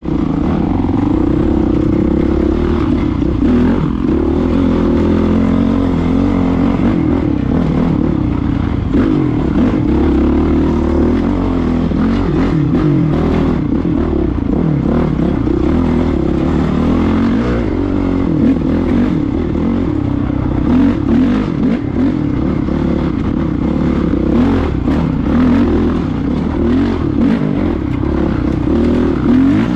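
Dirt bike engine running on a trail ride, the throttle rising and falling, picked up by a camera mounted on the bike or rider. Knocks and rattles from the rough ground run through it, more of them from about eighteen seconds in.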